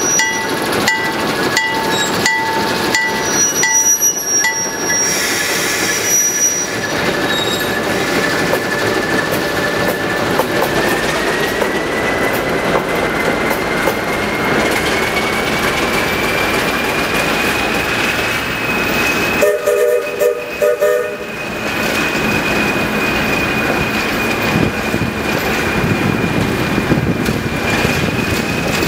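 Alco S2 diesel switcher pulling a passenger train away, its turbocharged engine running under load, with its bell ringing about twice a second for the first five seconds or so. A high whine climbs slowly in pitch as it gathers speed, and a short horn blast comes about twenty seconds in.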